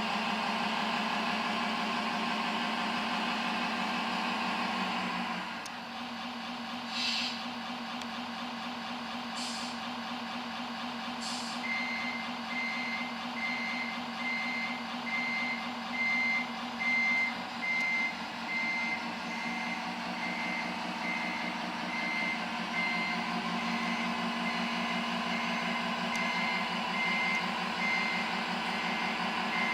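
Simulated truck engine and reversing sounds from the Servonaut sound module of a radio-controlled Scania R620 model truck. The engine sound runs higher and then drops back about five seconds in, three short air-brake hisses follow, and then a reversing beeper sounds about once a second while the engine runs on.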